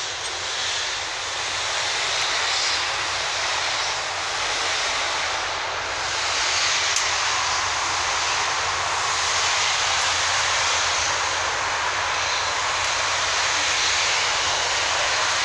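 Steady, loud rushing noise with no clear pitch, swelling and easing a little.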